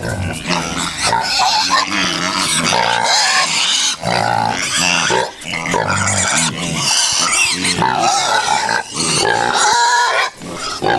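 Hungry pigs squealing and grunting nonstop, high wavering squeals over low grunts, as they wait to be fed.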